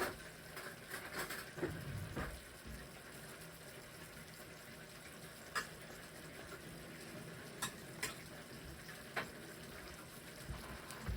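Food sizzling as it fries in a pan, a steady hiss broken by a few sharp clicks: several in the first couple of seconds, then single ones later on.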